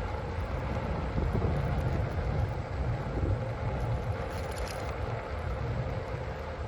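Wind buffeting a body-mounted phone microphone during a ride, a steady low rumble with a faint, even hum running under it.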